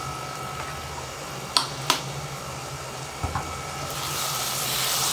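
A steady low hum runs under the window, with two sharp clicks about a second and a half in and a single knock near the three-second mark. From about four seconds in, a rising hiss begins as a silicone spatula stirs the sizzling ridge gourd in the non-stick pan.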